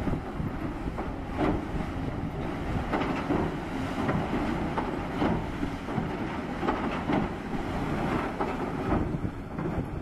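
Caterpillar excavator's bucket churning snow and slush in the water: repeated splashes and sloshing, roughly one surge a second, over a steady low rumble from the machine, with wind buffeting the microphone.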